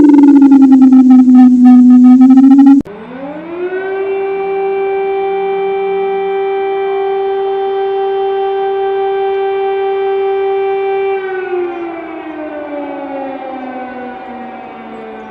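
Civil defense sirens. One siren winds down in pitch and cuts off abruptly about three seconds in. A second siren then winds up, holds a steady wail for about seven seconds, and begins to wind down near the end.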